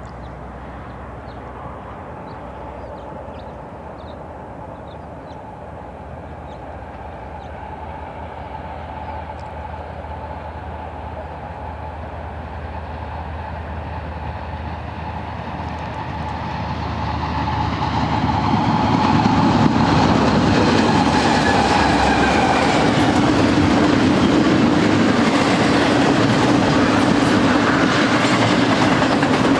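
BNSF double-stack intermodal freight train, led by GE diesel locomotives, drawing near and growing steadily louder for about twenty seconds. Its loaded well cars then roll past close by, the wheels on the rail making a steady, loud noise.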